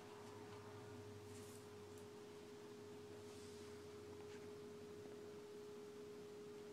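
Near silence with a faint, steady single-pitched hum held unbroken throughout.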